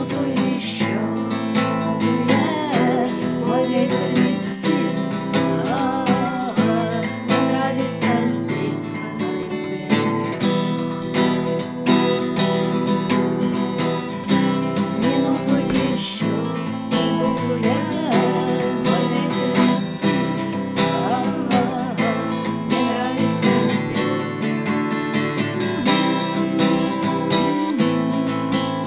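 Steel-string acoustic guitar strummed steadily while two women sing a song together.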